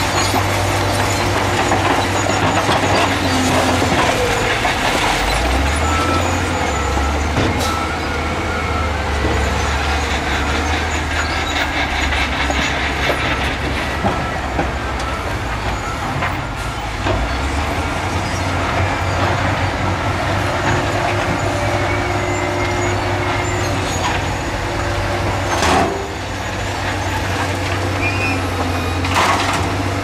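Heavy earthmoving machinery working: a steady diesel engine drone, with a few sharp clanks scattered through it.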